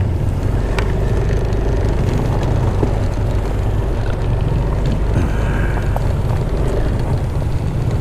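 Yamaha Aerox scooter riding slowly along a gravel track: steady engine and rolling noise with a low rumble.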